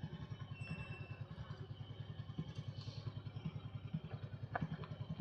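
Honda Sabre 1100 V-twin motorcycle engine running steadily at low road speed with an even, rapid exhaust pulse. A couple of light clicks sound partway through and near the end.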